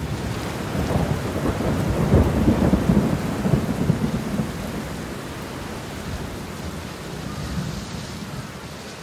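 Thunderstorm: steady rain with a long roll of thunder, loudest a second or two in, then rumbling away into the rain.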